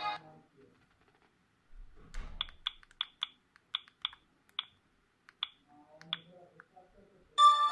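Sagem myW-8 mobile phone's keypad buttons pressed about a dozen times in quick, irregular succession, short sharp clicks, after one ringtone cuts off. The next polyphonic ringtone starts just at the end.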